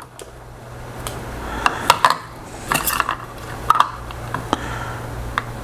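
Small Orange Pi Zero single-board computers being handled and set down on a desk. They make light, irregular clicks and clatters, about eight sharp taps over a few seconds, over a steady low hum.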